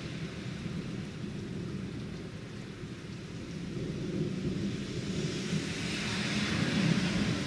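Steady rain with a low rumble underneath. Near the end a car drives by on the wet street, its tyre hiss swelling.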